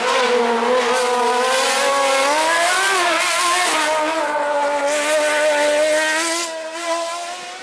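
Suzuki-engined Fiat 126 slalom car revving hard, its high-pitched engine note climbing and falling repeatedly as the driver accelerates and lifts between cones. It fades near the end.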